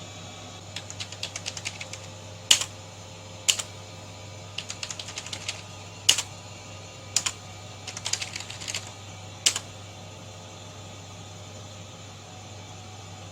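Typing on a computer keyboard: a few short runs of quick keystrokes, each followed by single harder key presses, spread through about the first ten seconds. A steady low hum runs underneath.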